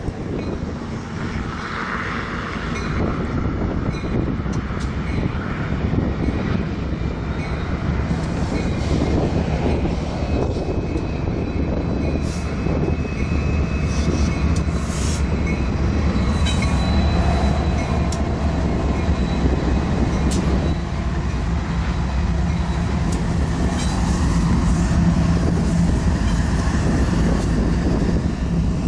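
Several Union Pacific diesel-electric locomotives running past together: a steady low engine drone mixed with wheel and rail noise. A thin high wheel squeal comes in about halfway through.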